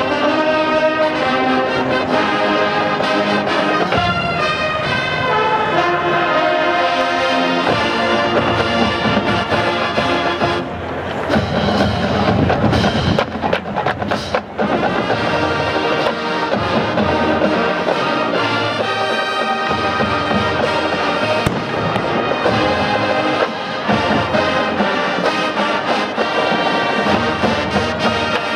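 Marching band playing: brass over a drumline. About halfway through there is a stretch of dense, heavy hits.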